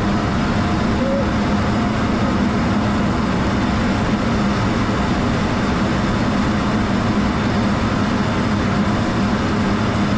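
Steady engine and airflow noise inside a US fighter jet's cockpit in flight, an even rushing sound with a low hum underneath.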